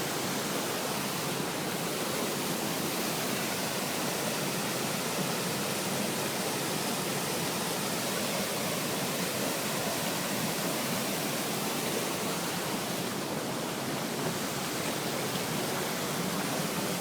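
Steady rushing of a waterfall, an even noise of falling water.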